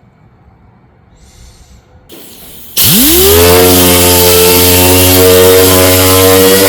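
An electric power tool's motor switched on: it spins up quickly with a rising whine, then runs loudly at a steady speed over heavy hiss.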